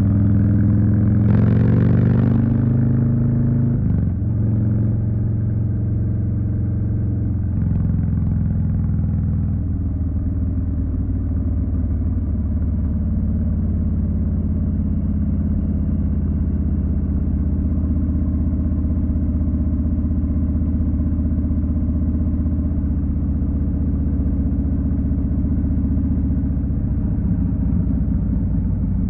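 Harley-Davidson Street Bob's Milwaukee-Eight 107 V-twin running under a rider. Its note shifts in pitch over the first few seconds, with a brief rushing noise about two seconds in, then settles into a steady, even run.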